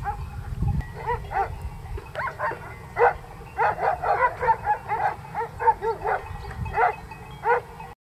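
Many short, rise-and-fall calls from several animals at once, the animals of a grazing herd and its shepherd guard dogs. They come thickest between about three and seven seconds in.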